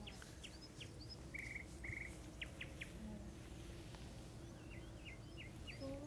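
Faint outdoor songbirds chirping, a scatter of short high calls and a couple of brief buzzy trills, over a low steady background rumble.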